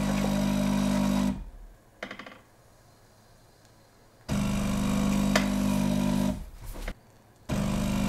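Delonghi Dinamica Plus superautomatic espresso machine's vibration pump pulsing water through the coffee to brew a 'long'. A steady buzzing hum stops about a second and a half in, comes back for about two seconds around four seconds in, and starts again near the end, with small clicks between the pulses.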